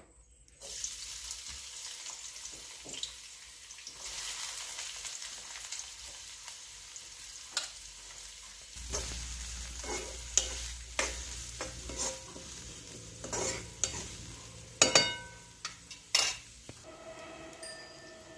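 Chopped onion and curry leaves dropped into hot oil in a kadhai, sizzling at once about half a second in. They are then stirred, with a spoon clinking and scraping against the pan now and then, the loudest clinks near the end.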